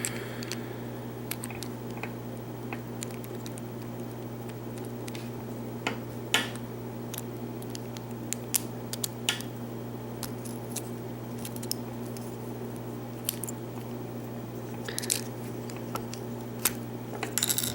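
Sporadic small metal clicks and scrapes as a circlip is worked off the back of a lock cylinder, over a steady low electrical hum.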